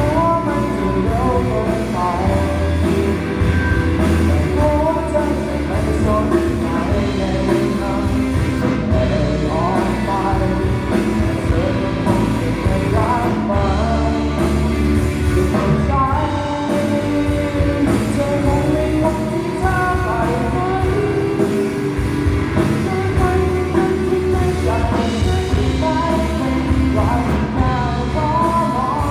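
Rock-style song with a lead vocal singing over a full band mix, played continuously and loudly.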